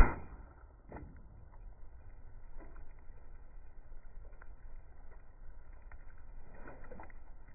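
A single sharp shot from a Crosman 760 air rifle firing a slug right at the start, dying away quickly. It is followed by a steady low rumble of background noise with a few faint ticks.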